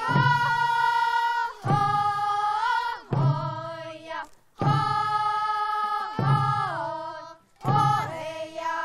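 Korean folk singing in the style of a traditional work song: a voice holds long, steady notes in phrases of one to three seconds with short breaks between them, and the pitch slides down at the end of several phrases.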